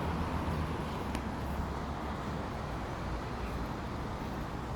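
Steady rumble of city road traffic.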